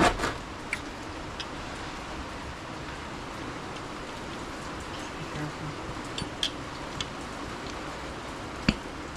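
Steady rain hiss, with scattered clicks and knocks from tools working at an e-bike's rear tire; a sharp knock near the end is the loudest.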